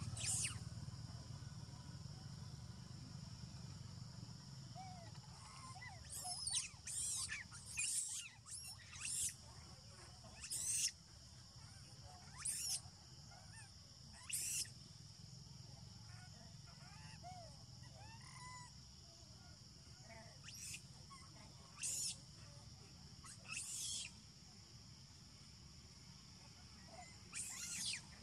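Short, sharp, high-pitched animal calls, a quick cluster of them about a quarter of the way in and single ones every few seconds later, over a steady high buzz of forest ambience.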